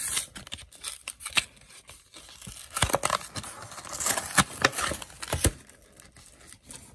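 Plastic blister packaging of a Pokémon card pack being torn and crinkled open by hand, in several sharp rips and rustles.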